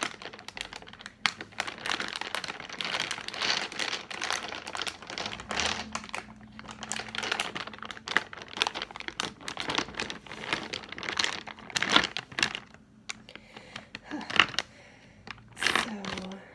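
A bag of gumballs crinkled and squeezed by hand in dense, irregular crackles, easing off for a couple of seconds near the end.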